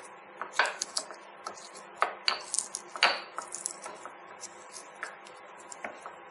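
Garlic cloves being crushed by hand: irregular sharp knocks and clinks of the crushing tool against its hard vessel, a few ringing briefly.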